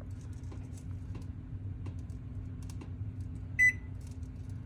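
A single short electronic beep from the Samsung stove's new DE07-00129A display board, about three and a half seconds in, over a low steady hum and a few faint clicks.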